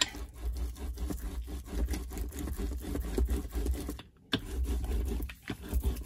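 Rubber brayer rolled over a freshly glued paper page on a cutting mat: a continuous scratchy rolling and scraping with a low rumble, pausing briefly about four seconds in.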